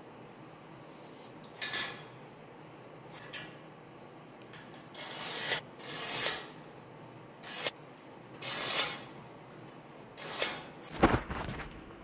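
Steel scribe scratching marking lines across a rusty steel flat bar against a square: short scraping strokes at irregular intervals, with a heavier knock of metal on metal near the end.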